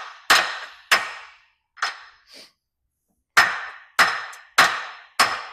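Hammer blows driving the top shaft of a John Deere 4230 Syncro-Range transmission further into its case, each strike with a short metallic ring. There are two blows and a weaker one, a brief pause, then four more at an even pace. The shaft is moving in but has not yet bottomed out.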